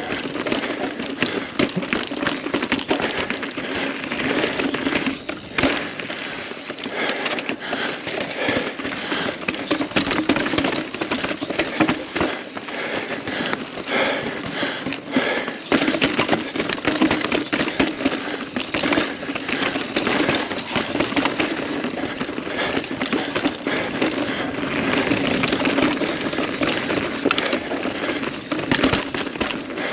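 Mountain bike rattling and clicking continuously as it rides over rough, chunky rock. Chain and frame clatter and tyres scrub on stone.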